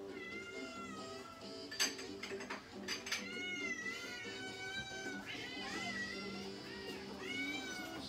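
Domestic cats meowing for their treats: four long, drawn-out meows that bend up and down in pitch, one after another. A sharp click sounds about two seconds in, and another a second later.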